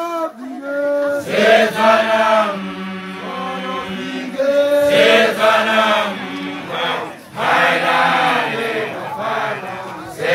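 Many voices singing a chant together in long phrases, broken by short pauses about every two to three seconds.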